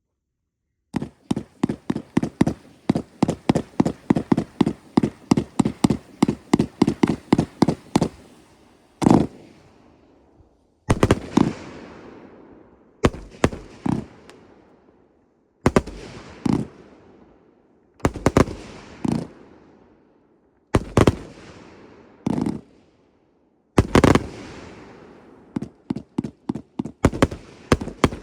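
Firework cakes firing: after about a second of silence, a rapid volley of shots, about four a second, for some seven seconds, then single louder bangs every second or two, each with a fading tail, and a fast volley again near the end.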